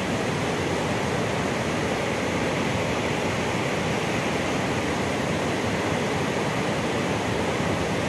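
Waterfall and rocky river rushing: a steady, loud wash of falling water with no let-up.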